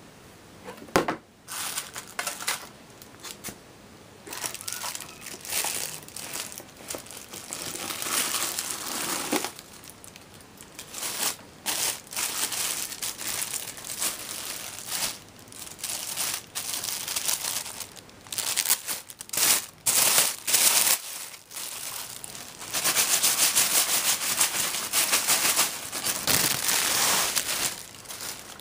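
Packaging being crinkled, crumpled and rustled by hand while a subwoofer is unboxed, in irregular bursts, with a longer, louder stretch of crinkling near the end.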